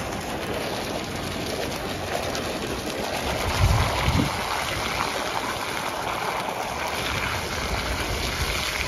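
Steady splashing of a hydrotherapy pool jet: a thin stream from an overhead gooseneck spout hitting a bather's back and shoulders and splashing into the pool water. A couple of low thumps come a little before the middle.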